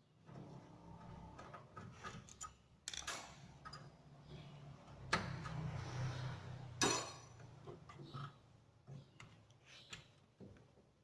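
Several sharp knocks and clicks over a low hum, the sound of a showcase refrigerator's panels and parts being handled during repair work.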